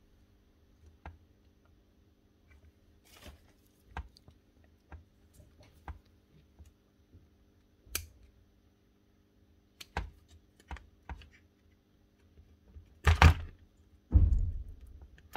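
Hand work on the plastic housing and wiring of a cordless hedge trimmer: scattered light clicks and taps, with two louder knocks near the end.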